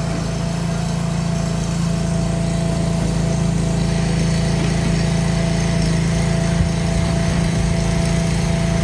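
Motor of a furniture moving lift running steadily as it carries a load, a constant drone with a steady whine above it. It grows a little louder over the first couple of seconds.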